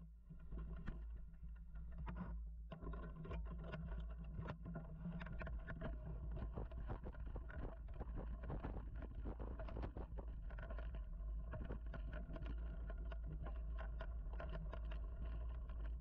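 Mountain bike ridden over a dirt singletrack: a steady low rumble with a constant clatter of small rattles and knocks from the bike as it rolls over the bumpy trail.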